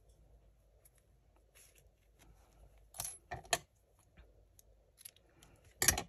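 Scissors snipping crochet yarn while the work is fastened off: quiet handling, then a few sharp snips and clicks about three seconds in and a louder one near the end.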